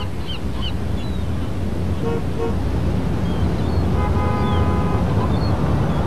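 Road traffic: a steady low rumble of passing vehicles, with a short double car-horn toot about two seconds in and a longer horn honk around the four-second mark. A few short high chirps sound over the top.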